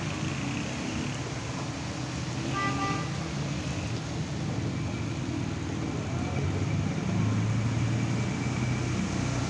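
Street traffic on a rain-flooded road: car engines and tyres running through water over a steady wash of noise, with a short horn toot about three seconds in. The engine hum grows louder near the end as a vehicle passes close.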